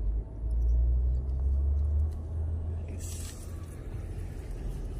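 Low outdoor rumble, loudest for the first two seconds and then easing. A faint hiss joins about three seconds in.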